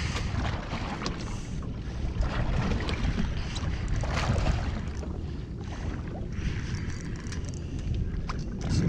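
Wind buffeting the microphone and water moving around a small boat at sea, a steady low rumble with a few light knocks.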